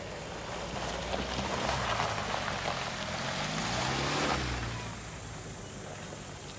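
Range Rover Evoque driving through a shallow creek ford: water rushing and splashing around the wheels, loudest in the middle, with the engine note rising and then easing off about four seconds in.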